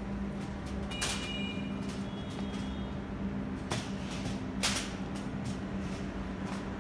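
A steady low machine hum, broken by three sharp knocks: the first about a second in, the others near the middle. Two faint short high beeps come in the first half.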